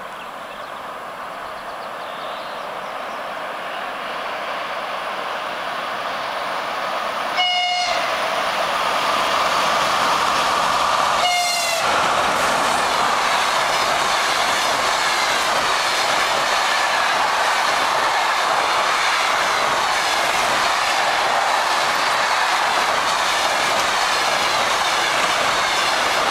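Škoda ChS200 high-speed electric locomotive hauling a passenger train, approaching and passing at speed. The rumble of the train grows steadily louder, then two short horn blasts about four seconds apart. After that comes a loud, steady rush of wheels and coaches with clickety-clack as the train runs by.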